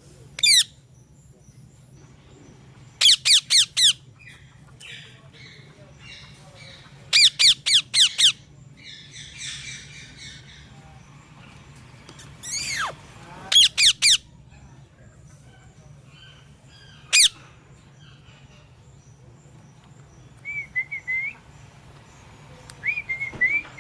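A parrot giving loud, shrill calls, each dropping in pitch, mostly in quick runs of four or five, with a few single calls between. Softer warbling chirps come near the end, over a low steady hum.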